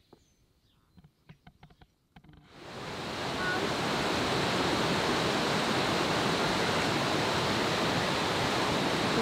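Waterfall: a river rushing steadily over stepped rock ledges, fading in about two and a half seconds in after a near-quiet start with a few faint clicks.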